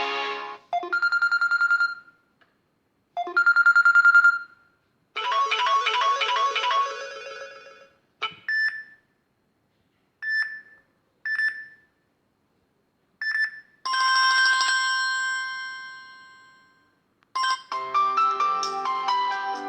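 Samsung Galaxy Tab S stock ringtones previewed one after another. There is a short pulsing electronic tone played twice, then a chiming melody, a few single blips, and a long bell-like tone that slowly fades. A busier melody starts near the end. Each one starts abruptly and there are brief silences between them.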